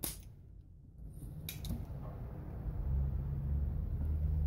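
Spring-loaded solder sucker (desoldering pump) firing with a sharp snap as solder is drawn off a capacitor lead, followed by a lighter click about a second and a half later. A low rumble comes up from a little after halfway on.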